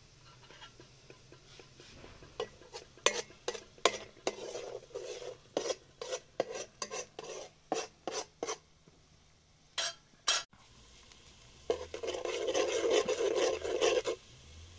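Utensil stirring food in a cooking pot: a run of short clinks and scrapes against the pot about two a second, two sharper knocks, then about two seconds of continuous scraping stir near the end.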